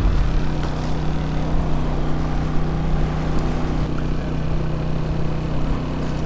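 Small Honda 2000 portable generator running with a steady, even hum.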